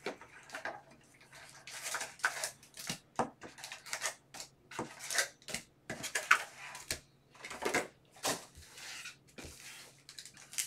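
Cardboard hobby box being opened and foil-wrapped Panini Prizm Draft Picks card packs pulled out and stacked: irregular crinkling and rustling of the wrappers with light taps and scrapes of cardboard.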